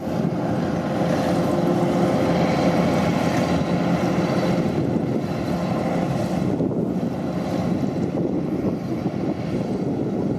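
Engine of a rice combine harvester running steadily, with wind noise on the microphone.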